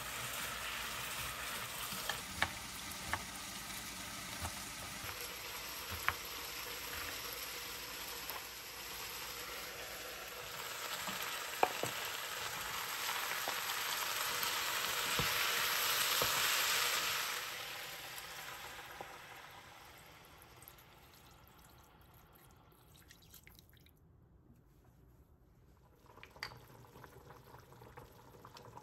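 Diced carrots and potatoes sautéing in oil in a pot, a steady sizzle with occasional knocks of a wooden spatula against the pot. The sizzle swells, then fades away after about seventeen seconds to near quiet.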